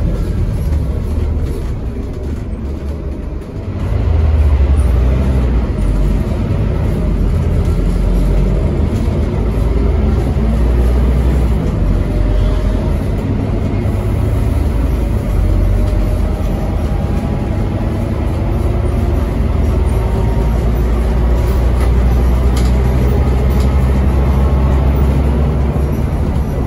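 Scania N270UD double-decker bus with ZF automatic gearbox heard from inside the passenger saloon, its diesel engine running hard at speed with a deep steady rumble. It eases off briefly about three seconds in, then pulls strongly again, with faint rising whines from the driveline as it accelerates.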